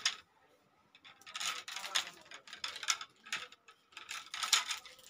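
A bundle of badminton rackets being handled: frames and plastic parts clicking, scraping and rubbing against each other in a string of short, scratchy bursts starting about a second in.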